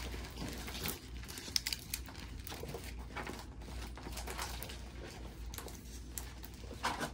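Large diamond painting canvas being reverse-rolled to flatten it, its plastic cover film crinkling and rustling irregularly, with a few sharp ticks about one and a half seconds in.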